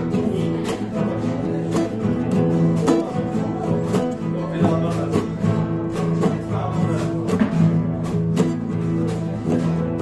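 Classical-style acoustic guitar being played by a beginner, a run of plucked and strummed notes and chords.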